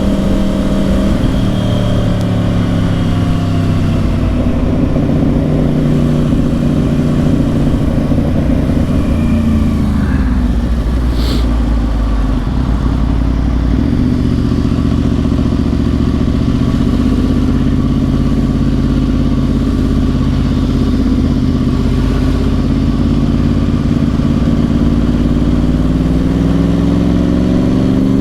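2010 Yamaha R1's crossplane inline-four with dual Yoshimura exhausts running under way. The engine note falls away around ten seconds in, picks up again a few seconds later and rises near the end. There is a brief click about eleven seconds in.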